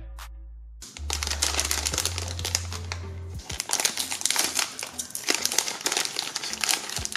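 Shiny plastic blind bag crinkling loudly as hands open it, starting about a second in, over background music.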